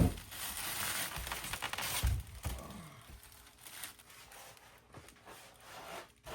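Foam packing and packaging being handled and pulled about in the box: a rustling, scraping noise for about two seconds, then fainter handling sounds.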